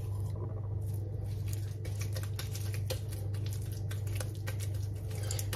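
Faint, irregular patter of small clicks from hands scooping and shaping wet psyllium dough and handling loose flax and black cumin seeds, over a steady low hum.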